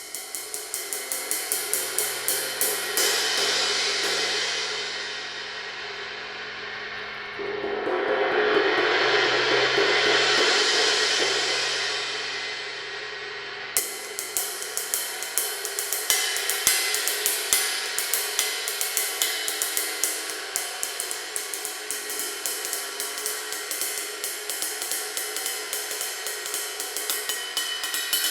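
Paiste Twenty Series 20-inch light ride cymbal played with a stick in a steady ride pattern, its wash building up between strokes. About seven seconds in the wash swells louder for several seconds, then stops suddenly, and the quick, even ride strokes go on. This is the sound test of the cymbal after its crack was repaired with a drilled hole.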